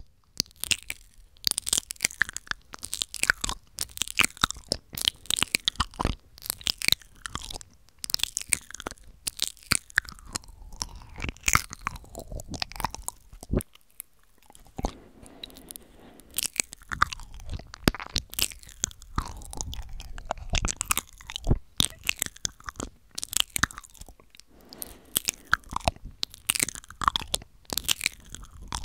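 Intense, fast mouth sounds made close to a microphone: a dense, irregular run of wet clicks, smacks and pops from the lips and tongue.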